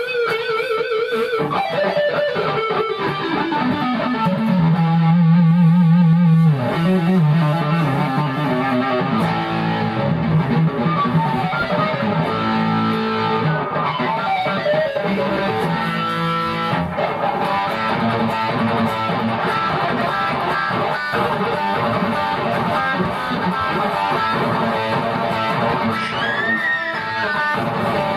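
Vintage Metal Axxe electric guitar played amplified: lead lines and riffs, with a note sliding down in the first few seconds, a low held note with vibrato a few seconds later, and a high bent, wavering note near the end.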